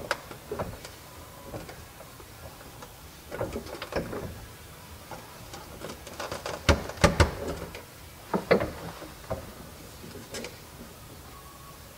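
Scattered clicks and knocks from a 9-inch touchscreen display being adjusted on its ceiling mount and its mounting knob turned, with a cluster of louder knocks about seven seconds in.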